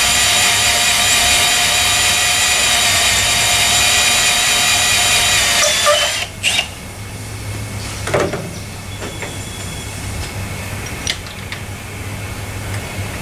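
Power drill running steadily under load, drilling into a cross-threaded lug nut and wheel stud. It stops about six seconds in, starts again for a short burst, and is followed by a few light metal clicks.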